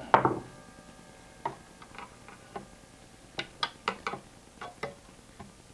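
Light clicks and taps of a screwdriver and a small wire connector against the metal chassis and circuit board of an opened avionics radio, as a battery lead is worked back onto its pin. A sharper knock comes right at the start, and the taps grow quicker about three and a half seconds in.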